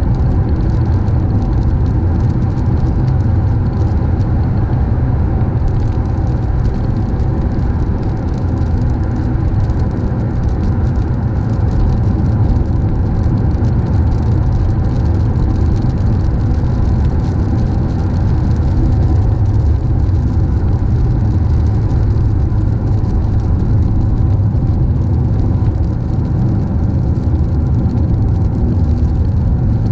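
Car driving along a road: steady low rumble of engine and tyre noise, unchanging throughout.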